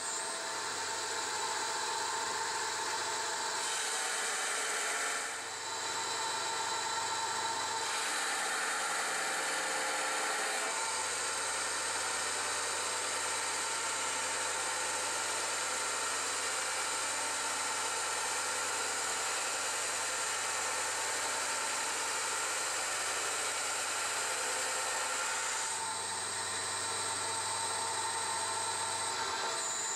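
9x20 benchtop metal lathe, converted to CNC, running as a carbide insert turns the outside of a cast iron backing plate. A steady machine whir with a thin high whine, shifting in tone and level in steps several times as the tool moves from pass to pass.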